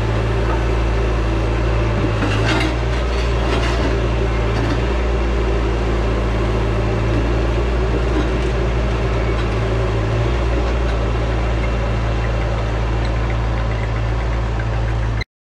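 Bobcat T595 compact track loader's diesel engine running steadily under load while its pallet forks lift out a broken concrete sidewalk slab. A couple of short knocks are heard about two and a half and three and a half seconds in.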